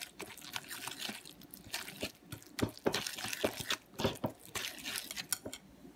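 Wire whisk beating thick pancake batter in a ceramic bowl: irregular wet squelches and quick clicks as the whisk slaps through the batter and strikes the bowl. The sound stops at the end.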